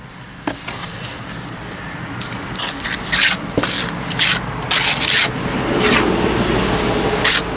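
Steel trowel scraping wet cement plaster, a series of rough scrapes at about one to two a second as mortar is scooped and worked onto the base of a concrete block foundation. There are a couple of sharp clicks of the trowel near the start.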